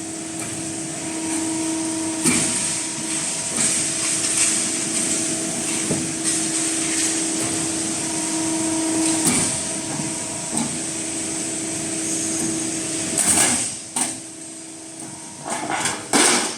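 Metal roof tile roll-forming machine running: a steady motor hum with a constant tone, broken about every three to four seconds by a sharp metallic clank, with several clanks in quick succession near the end.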